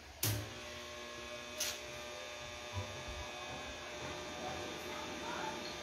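An arc welding machine switches on with a sharp click, and its transformer then hums steadily with many overtones. A second click follows about a second and a half in.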